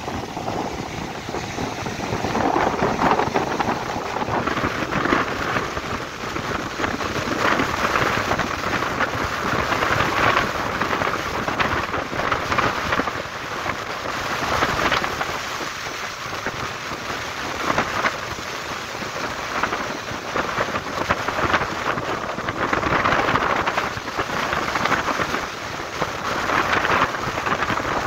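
Sea surf breaking and washing up a sandy beach, surging in swells every few seconds, with strong wind rushing over the microphone.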